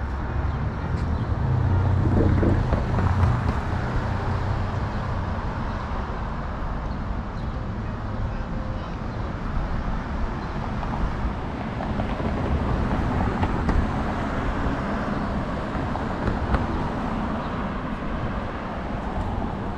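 City street traffic noise, a steady hum of road vehicles. A heavier vehicle rumbles past from about one and a half to four seconds in.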